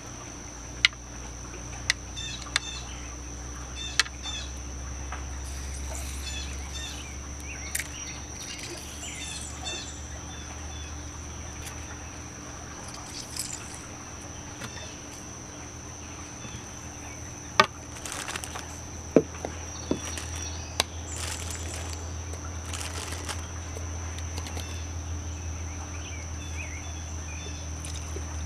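Outdoor ambience: a steady high-pitched insect drone with birds chirping now and then, and a few sharp clicks.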